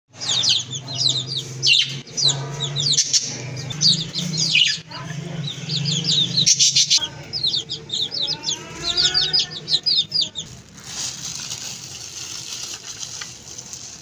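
Many small birds chirping rapidly in quick falling chirps, over a steady low hum; the chirping thins out after about ten seconds.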